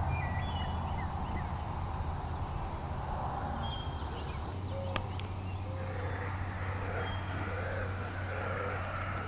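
Small birds chirping sporadically over a steady low hum, with a run of short, repeated lower calls in the second half.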